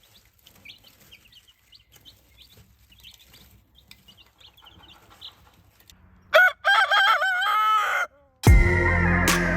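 Faint peeping of baby chicks, then about six seconds in a rooster crows once, loud and wavering for nearly two seconds. Music starts near the end, opening with a falling sweep.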